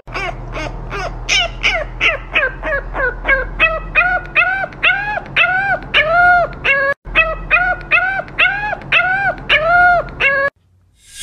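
French bulldog puppy yipping over and over, about three short calls a second, each rising and falling in pitch; the calls stop about ten seconds in.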